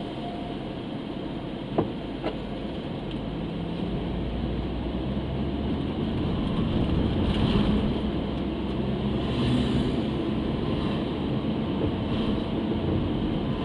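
Car running along the road, a steady rumble of engine and tyres that grows louder from about four seconds in as it picks up speed. Two short knocks come close together about two seconds in.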